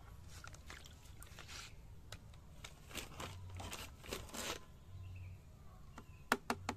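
Water in a plastic bucket being stirred by hand and a metal spoon: intermittent splashing and sloshing of the liquid, with a few sharp clicks near the end.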